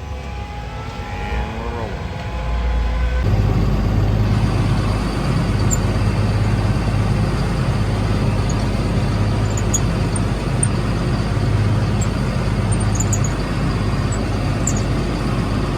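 Heavy diesel harvest machinery running steadily with a deep hum, growing louder about three seconds in.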